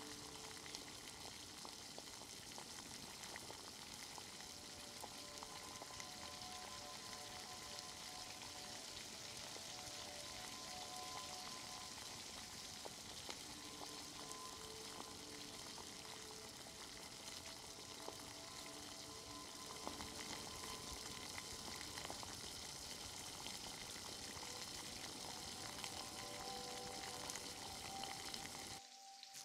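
Food frying in a hot pan: a dense, steady crackling sizzle that cuts off suddenly near the end.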